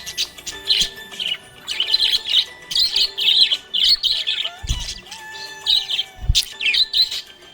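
Budgerigar chirping and warbling in quick, busy runs of high notes, with two low thuds near the end.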